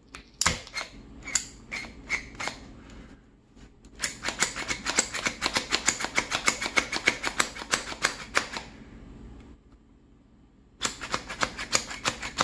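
Hand-held plunger vegetable chopper being pressed over and over as it chops a pepper, its plastic mechanism clacking with each press. A few slow presses come first, then a long run of quick clicks, several a second. After a pause of about two seconds a second quick run starts near the end.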